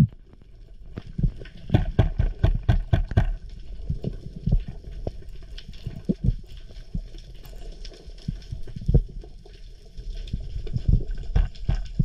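Underwater sound heard through a camera housing: muffled water rumble with sharp clicks and knocks, a quick run of them about two to three seconds in and scattered thumps after.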